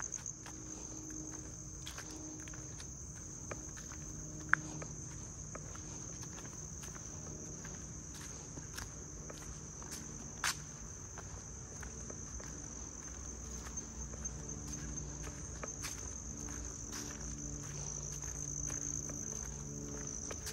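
A steady, high-pitched chorus of insects (crickets or cicadas) droning without a break, with footsteps on wooden steps and gravel and a couple of sharp clicks, about 4.5 and 10.5 seconds in.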